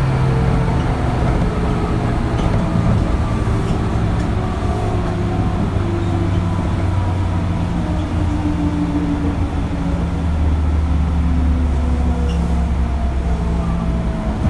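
Onboard running sound of a JR 205 series motor car (MoHa 205-270) with external-fan DC traction motors. The motor whine falls steadily in pitch as the train slows, over a continuous rumble of wheels on track.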